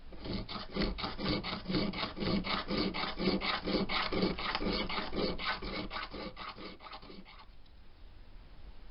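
The underside of a wooden acoustic guitar bridge being rubbed down, removing old glue and wood with quick back-and-forth abrading strokes, about four or five a second. The strokes stop about seven and a half seconds in.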